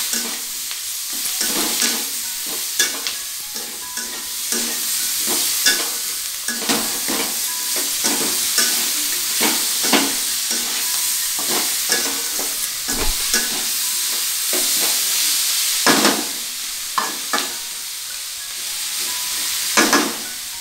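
Chopped onion, capsicum and tomato sizzling in hot oil in an aluminium kadai while a metal spatula stirs them, with frequent clicks and scrapes of the spatula against the pan.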